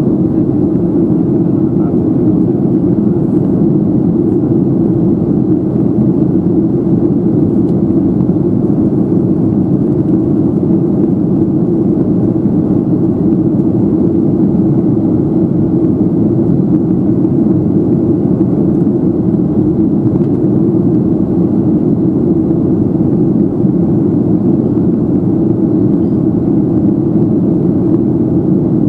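Steady, even cabin noise of a Boeing 737-700 in flight, heard from a window seat over the wing: the hum of its CFM56-7B turbofan engines and the rush of air past the fuselage, mostly low in pitch and unchanging.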